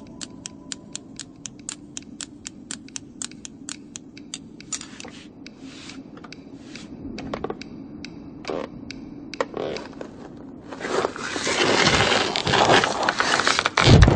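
Knitting needles clicking quickly, about five clicks a second, then slowing to scattered clicks. Near the end, a loud scraping rush ends in a heavy thump.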